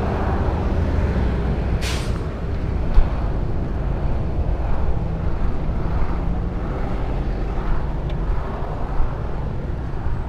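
Street traffic: a steady rumble of passing cars and motorbikes, with a short hiss about two seconds in and a sharp knock about a second later.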